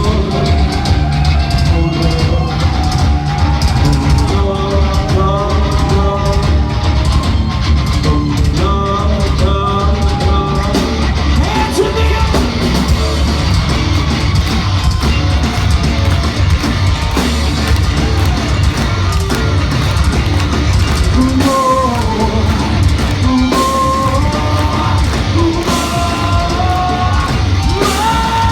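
Rock band playing live and loud: heavy drum kit and distorted guitars, with melodic lines bending in pitch above them.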